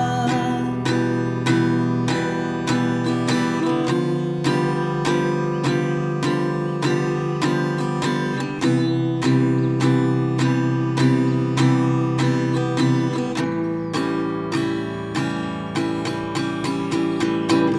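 Acoustic guitar strummed in a steady rhythm, chords ringing with no voice.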